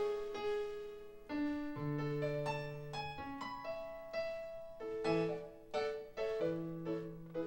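Slow piano-sound keyboard intro to a love ballad: struck notes and chords ringing and fading one after another, with held bass notes underneath.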